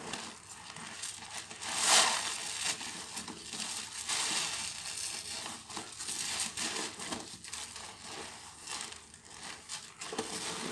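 Soapy sponges being squeezed and kneaded by hand in a basin of thick suds: wet squelching with crackling, popping foam, loudest about two seconds in.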